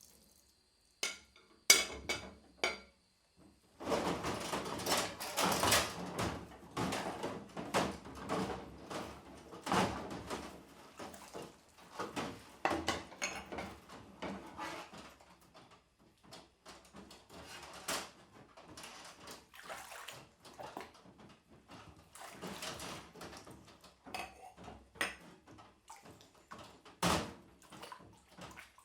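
Washing up by hand: kitchen utensils and dishes clinking and knocking in a sink amid splashing water. A few sharp clicks come first, then a busy stretch of scrubbing and clattering that comes and goes, with one sharp knock near the end.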